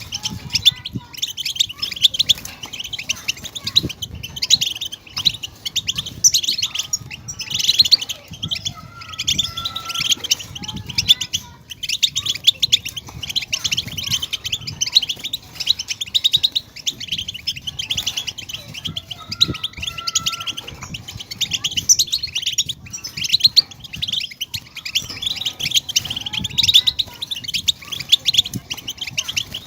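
European goldfinch twittering: a fast, unbroken run of high chirps and trills.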